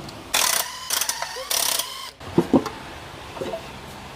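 Hand tools working on a partly dismantled engine: two short rasping, ratchet-like bursts, then a couple of sharp knocks about two and a half seconds in.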